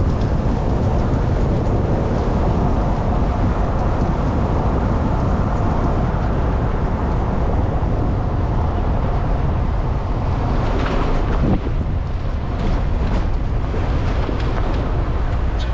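Steady low rumble of a vehicle on the move: engine and road noise heard while riding along.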